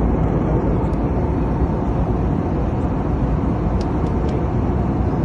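Aeroplane engine and airflow noise heard inside the passenger cabin: a loud, steady rushing drone without change.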